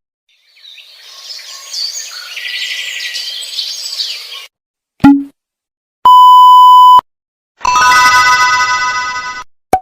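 A run of separate stock sound effects. First comes a noisy, chirpy clip for about four seconds, then a short thud. Next is a one-second 1 kHz censor bleep, followed by a ringing chime-like tone that fades over about two seconds, and a click at the end.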